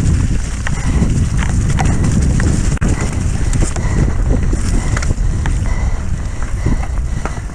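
Mountain bike descending rough terrain at speed: a steady rumble of tyres and wind, with rapid, irregular clattering and knocking as the bike's chain and frame rattle over rocks.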